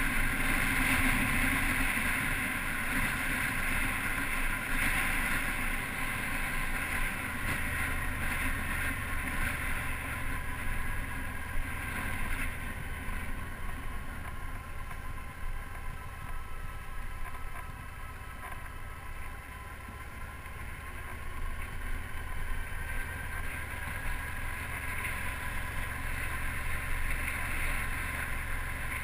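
Motorcycle riding downhill, its engine running steadily under wind rushing over the bike-mounted microphone. The sound eases slightly about two-thirds of the way through, then rises again.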